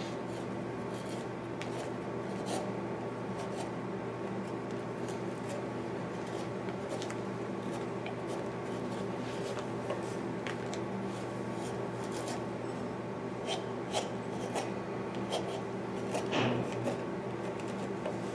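A hand-held carving blade shaving and scraping a white cedar decoy body in short, irregular strokes, with a louder knock near the end, over a steady hum.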